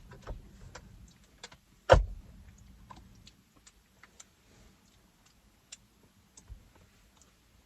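Close-miked eating: scattered small mouth clicks while chewing fast food, with one loud knock about two seconds in and a softer one near the end.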